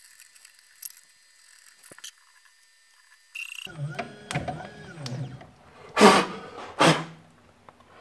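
The CNC 3018 engraver's stepper motors whine in rising and falling pitches. Then come two sharp, loud blasts of breath about a second apart, blowing out a small fire burning on the machine's Z-axis stepper-driver board.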